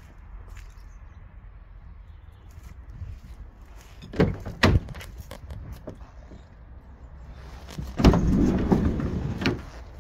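Two sharp clicks of a van door being unlatched, then the side sliding door of a VW Caddy Maxi rolled open along its runner for about a second and a half.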